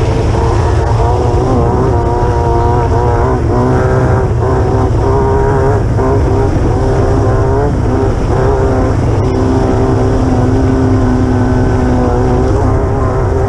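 Class 9 desert race buggy's air-cooled VW engine running hard over rough ground, its pitch rising and falling with the throttle, over a steady rumble of chassis and road noise.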